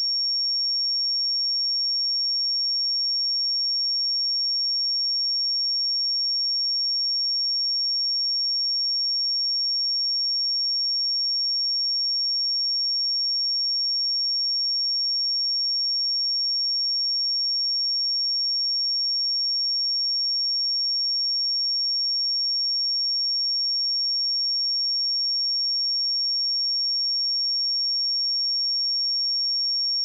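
A steady pure sine-wave test tone at 5525 Hz: a single high-pitched whistle held at constant pitch and level.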